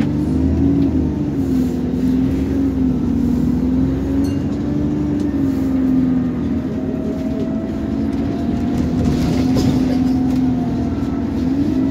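Alexander Dennis Enviro400 double-decker bus on the move, heard from inside the lower deck: the engine and drivetrain drone with a tone that wavers up and down as the bus changes speed, over a low road rumble. A higher whine comes in about halfway.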